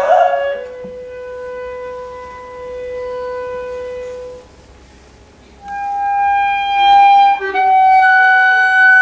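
Live chamber ensemble playing contemporary music in long held notes. A lower note fades out about four seconds in, and after a short hush louder, higher sustained notes take over.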